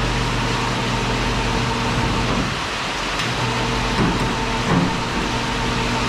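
A steady engine-like hum under an even hiss, with a few brief knocks and scrapes about two and a half, four and nearly five seconds in as a hog carcass is hoisted off a wooden flatbed trailer.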